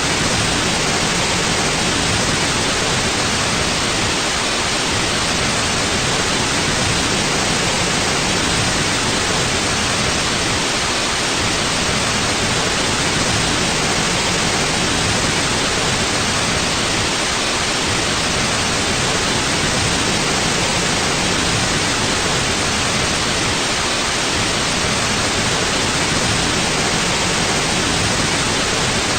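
Continuous white noise: an even, steady hiss, strongest in the high range, with no change.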